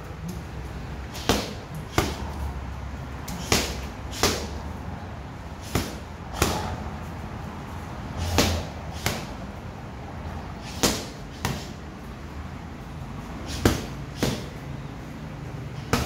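Boxing gloves punching a trainer's focus mitts and body shield: sharp smacks, mostly in pairs, a pair every two seconds or so.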